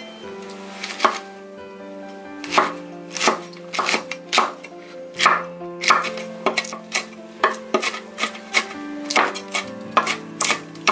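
A wide-bladed kitchen knife slicing fresh red and green chili peppers on a wooden cutting board: repeated sharp knife strikes against the board at an uneven pace, with soft background music underneath.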